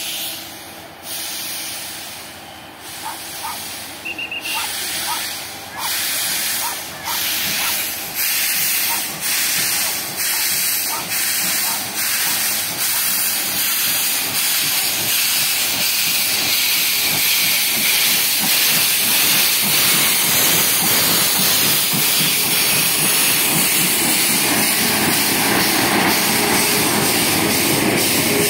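DT668, a DT650-class 2-8-2 steam locomotive, working toward and past at close range, its exhaust chuffing in a steady beat that grows louder as it nears. From about halfway through, the steady rolling noise of the passenger carriages passing takes over.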